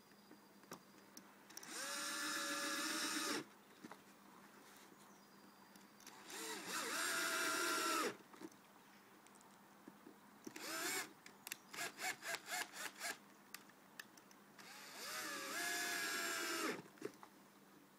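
Electric drill run in three bursts of about two seconds each, its motor whine rising as it spins up and dropping as it stops. Between the second and third bursts comes a quick run of clicks.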